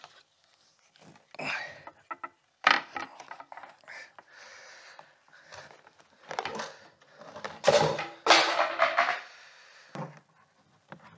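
Rummaging in a leather suitcase: a run of irregular rustles, knocks and clatters as objects, among them a plate, are pulled out, with short vocal noises mixed in. The loudest stretch comes about two-thirds of the way through.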